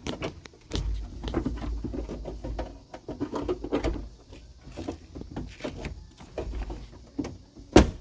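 Hands working inside a truck's door shell, reaching for the rear-door latch control cables: irregular clicks, rattles and rustles of cables and metal, with one sharp loud click just before the end.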